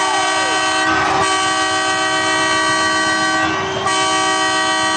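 Hockey arena goal horn sounding after a goal: a loud, steady horn tone, cut by two short breaks.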